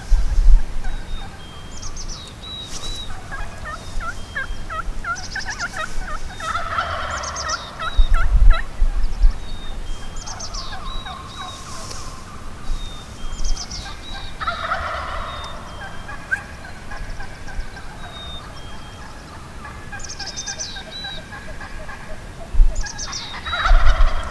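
Merriam's wild turkey gobbling, three rapid rattling gobbles spaced several seconds apart, with small birds chirping higher up and a few low thumps.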